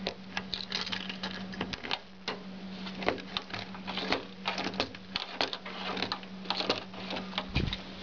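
Key jiggling and turning in the exterior door lock cylinder of an Isuzu pickup (Holden Rodeo), giving many irregular metallic clicks and rattles, over a steady low hum.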